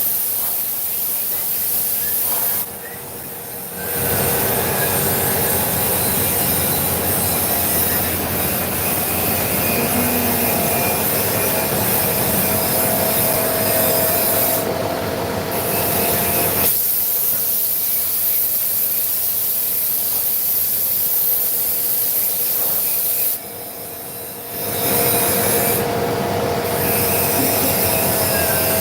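CNC vertical machining center running a cut: a steady, dense machining noise with a few steady tones, dropping briefly in level twice, about three seconds in and again near the end.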